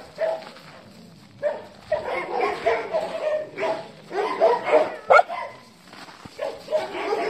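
Dogs barking and yipping in bouts, with one sharp, loud bark about five seconds in.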